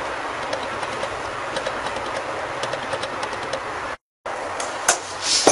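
Steady background hiss with faint ticks while the cream is poured; after a brief dropout about four seconds in, a spatula clicks and scrapes against the rim of a metal mixing bowl.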